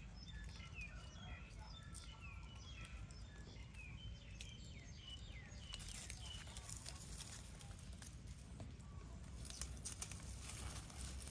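Faint, quick falling chirps of small birds, many in the first half and fewer later, with rustling in dry leaf litter that grows near the end.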